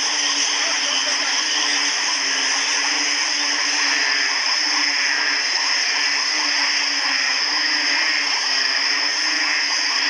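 Dense night chorus of calling frogs and insects: a steady high-pitched drone over a lower pulsing hum, unbroken throughout.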